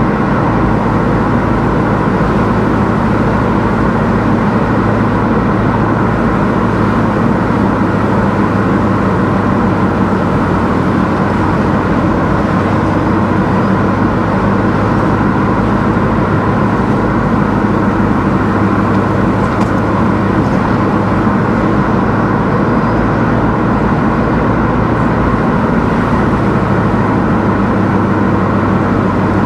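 A car driving along a road at an even pace: steady engine and road noise, with no revving, gear changes or sudden sounds.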